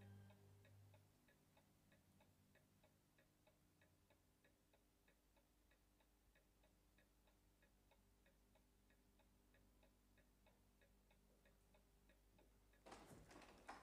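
Faint, steady clock ticking in a quiet room, with the last notes of soft background music dying away at the start. A louder rustling noise begins near the end.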